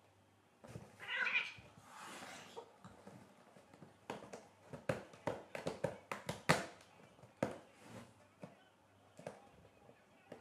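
Two cats tussling on a corrugated cardboard scratcher bed: a cat gives a short cry about a second in, followed by a brief hiss, then claws scrabble and scratch on the cardboard in a quick run of sharp scrapes and taps.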